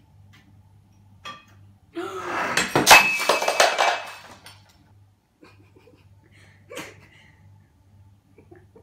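A ceramic cat food bowl crashing to the floor and breaking, dry kibble scattering and clattering across the floor, starting about two seconds in and dying away over a couple of seconds. A single short knock comes just before it and another a few seconds after.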